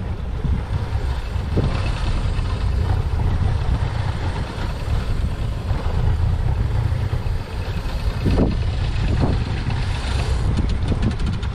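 Steady low rumble of wind on the microphone and a moving fishing boat's engine, with water washing past the hull. A short run of faint rapid ticks comes near the end.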